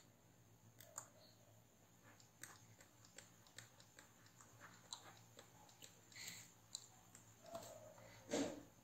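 Near silence with faint, scattered clicks and ticks of a stylus on a drawing tablet during handwriting. A slightly louder short sound comes near the end.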